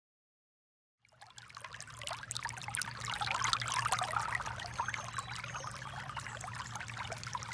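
Shallow stream water trickling and babbling over rocks, fading in about a second in and then running steadily.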